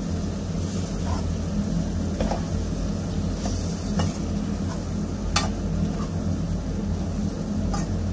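A slotted metal spatula stirring onions, tomatoes and green chillies as they sauté in an aluminium karahi, with a few sharp scrapes against the pan. A steady low hum runs underneath.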